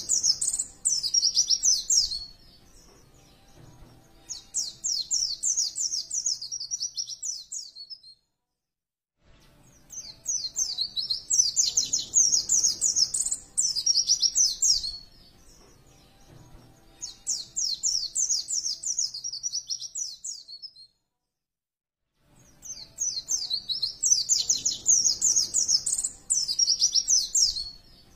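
White-eye (pleci) song: fast, high-pitched twittering phrases, each two to five seconds long, repeated five times with short pauses between.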